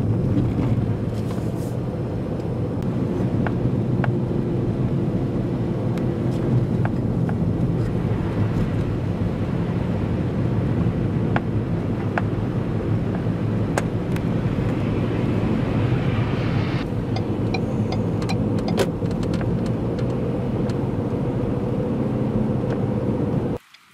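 Steady road noise of a car driving on a wet, slushy highway: a low engine drone under tyre hiss. It cuts off abruptly near the end.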